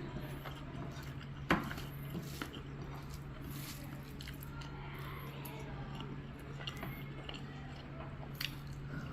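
Close-up eating sounds: wet chewing and squishing of food, with a sharp click about one and a half seconds in and a few fainter clicks, over a steady low hum.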